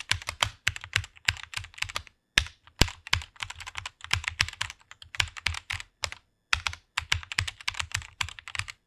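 Fast typing on a computer keyboard: rapid runs of key clicks with a couple of brief pauses.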